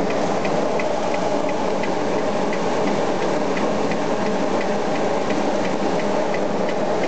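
Mathews Company tower grain dryer running while drying corn: a steady rushing machine noise with a light, regular tick about three times a second.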